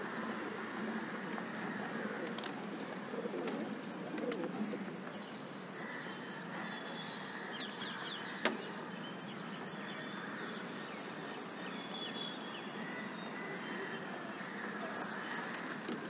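Rock pigeons cooing softly while they feed at a balcony seed tray, over steady background noise. There are faint high chirps, and one sharp tap about halfway through.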